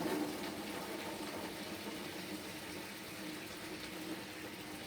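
Water running into the wash tub of a small twin tub washing machine as it is filled, a steady rush that slowly grows quieter.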